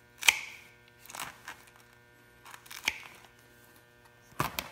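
Tin snips cutting into a rubber mountain bike tire at its metal bead: a few sharp snips and crunches, the loudest just after the start and more near the end. The bead is tough to cut.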